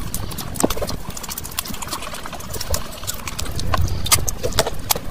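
Close-miked chewing and lip smacking of a person eating meat curry and rice by hand, with frequent sharp, irregular wet mouth clicks.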